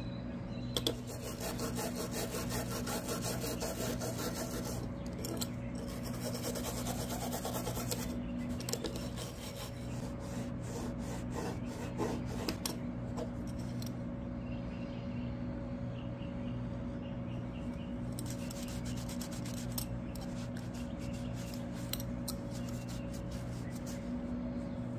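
Metal belt buckle being hand-polished with Flitz metal polish: rapid back-and-forth rubbing strokes, in runs with short pauses.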